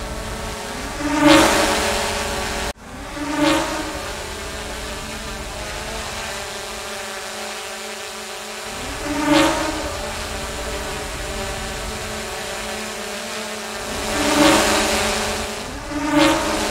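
Quadcopter drone buzzing steadily with a whine of several tones, swelling louder in five quick whooshing passes. The sound cuts out abruptly for an instant nearly three seconds in.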